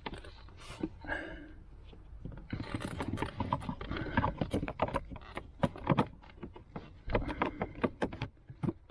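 Hands working on plastic car trim and screws: a quieter start, then from about two and a half seconds in a dense run of quick clicks, knocks and small rattles as the cabin filter cover is fitted and its screws go back in.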